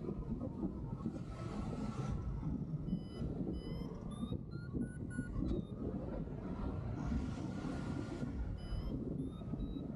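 Wind rushing over the microphone of a hang glider in flight, a steady low rumble. Through it come short, faint, high beeps in spells, typical of a flight variometer's climb tone.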